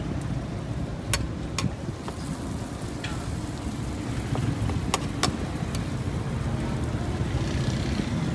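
A metal spatula scraping and clinking on a large iron tawa griddle, with a few sharp clinks spread through, over a steady low background rumble.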